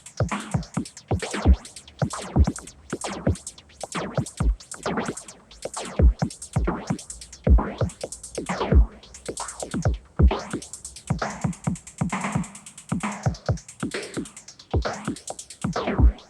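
RYK Modular Night Rider synthesizer module played as electronic percussion: a fast, busy pattern of sharp synthetic hits with a few deep kick-like thumps. A longer sweeping tone rings out midway.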